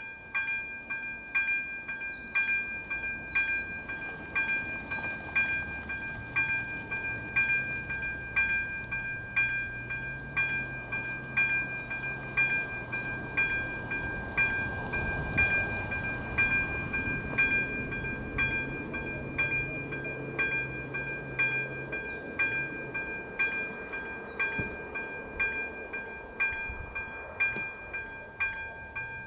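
ZV-02 electronic level-crossing bell ringing in even strokes about twice a second, the warning that a train is approaching. A low engine hum comes up in the background through the middle and fades.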